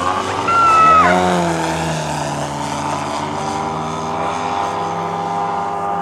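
Propeller engine of a radio-controlled aerobatic model airplane flying past, its pitch dropping about a second in as it goes by, then running steadily.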